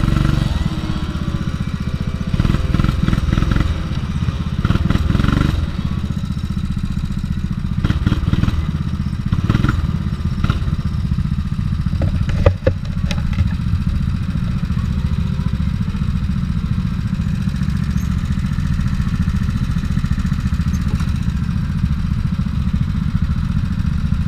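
RiMO Alpha2 rental go-kart engine running under the onboard camera, rising and falling over the first few seconds as the kart slows off the track, then idling steadily once the kart stops in the pit queue. One sharp knock comes about halfway through.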